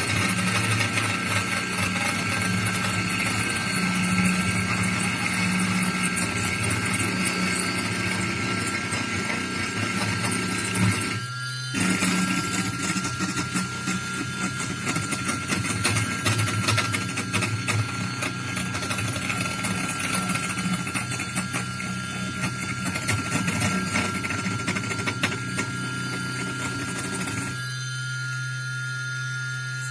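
Motorised spindle with a cutting bit milling into a plexiglass sheet: a steady high motor whine and low hum under the gritty noise of the cut, with a brief break about eleven seconds in. Near the end the cutting noise drops away, leaving the spindle's steady hum.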